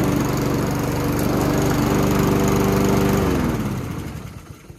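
Honda HRR216VKA walk-behind mower's GCV160 engine running steadily, then about three seconds in winding down with falling pitch and stopping as the blade-control bar is released.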